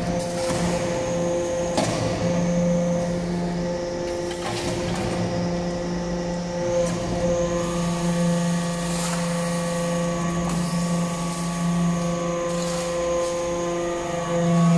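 Hydraulic metal-chip briquetting press running, with a steady hum from its hydraulic pump and motor. Short knocks come about every two seconds.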